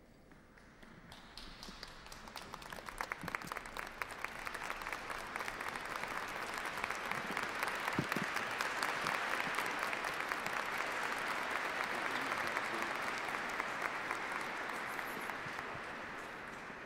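A large congregation applauding. The clapping starts about a second in, swells to a steady peak and slowly dies away near the end.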